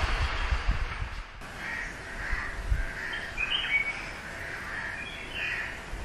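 Crows cawing, several short calls one after another over a steady background hum, with a low rumble in the first second or so.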